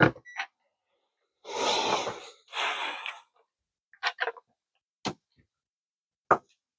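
Small sharp clicks and taps of a phone and tools being handled on the bench, with two short breathy hisses, each under a second, about two and three seconds in.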